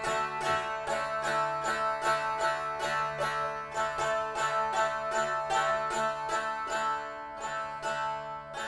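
Fretted box zither played on the lap, strummed about three times a second, picking out a folk tune over steady drone strings. The playing grows quieter near the end.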